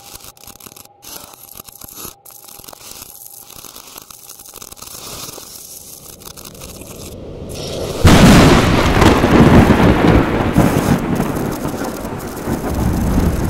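Faint hiss, then about eight seconds in a sudden loud rumbling noise that slowly dies away over the following seconds.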